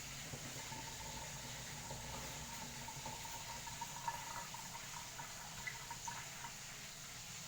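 Steady, fairly quiet watery hiss of water in a kitchen, with a few small ticks.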